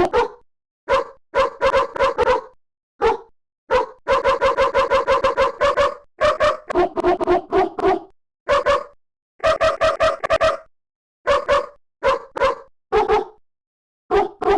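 A dog barking over and over, in single barks and quick runs of barks with short pauses between, including a long fast volley about a third of the way in.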